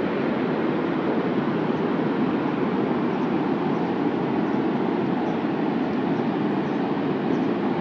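Water spilling down the face of the Grand Coulee Dam spillway, a steady rushing noise that neither rises nor falls.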